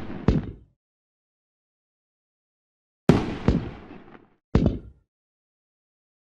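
Fireworks bangs: a sharp bang just after the start on the tail of an earlier one, then complete silence, then two bangs in quick succession about three seconds in with a brief crackling tail, and one more bang about a second later. Each bang fades out within about half a second.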